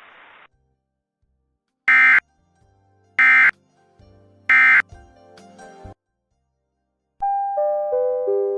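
Weather radio hiss cuts off about half a second in. Three loud electronic beeps follow, evenly spaced about a second and a quarter apart. Near the end a descending four-note electronic chime rings out.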